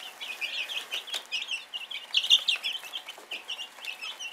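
A brood of young chicks peeping nonstop, many short high chirps overlapping one another.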